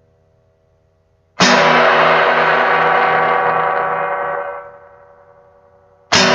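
Soundtrack music: a loud sustained chord starts suddenly about a second and a half in, rings and fades away, and a second chord is struck just before the end.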